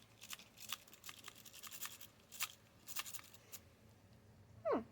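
Lock-pick rake scraped back and forth in a transparent practice lock's keyway, an irregular run of small metallic clicks and scrapes as it rakes over the pins; the lock does not open because the tension wrench is being turned the wrong way. A brief falling squeak near the end.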